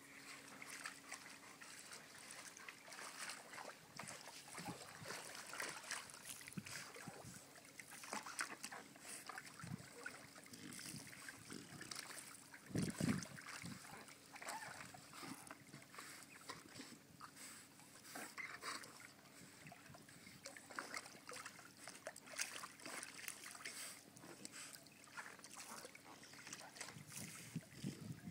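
Water splashing irregularly as a chow chow moves about in it, with one louder, deeper splash about halfway through.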